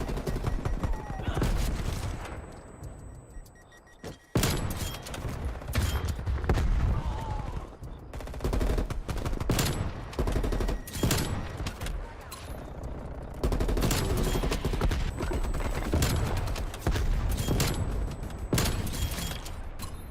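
Gunfire in first-person shooter game audio: rapid automatic bursts and single shots in quick succession. It dies down for a couple of seconds and starts again suddenly about four seconds in.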